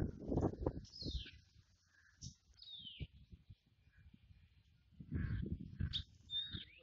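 Birds calling, several sharp whistled notes sliding downward in pitch. Low, irregular rumbling, loudest in the first second and again about five seconds in, sits beneath the calls.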